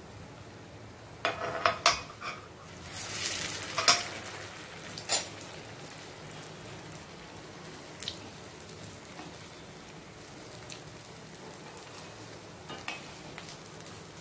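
Urad dal vadas deep-frying in hot oil in a small kadai: a steady sizzle, with a louder burst of sizzling about three seconds in as another vada goes into the oil. A slotted spoon clicks against the pan a few times.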